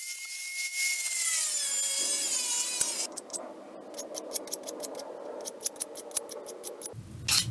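A falling, wavering tone with several pitches over the first three seconds, then a run of quick, evenly spaced scraping strokes of a blade drawn over a small painted aluminium piece.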